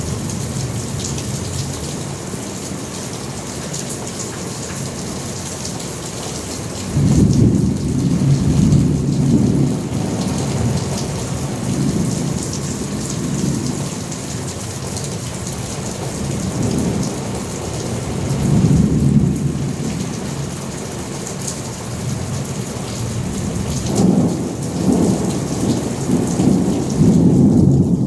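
Steady rain hissing with rolling thunder: a loud low rumble breaks in suddenly about seven seconds in, and further rumbles follow around the middle and near the end.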